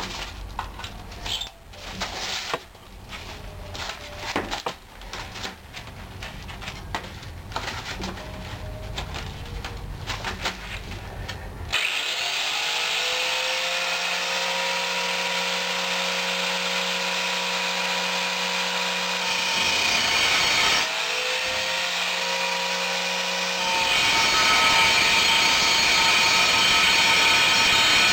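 Scattered knocks and handling clatter, then about twelve seconds in an angle grinder with a cutting disc spins up and runs with a steady whine, easing off and spinning back up a little after twenty seconds. Near the end the disc bites into the steel plate and the sound turns louder and harsher as it cuts.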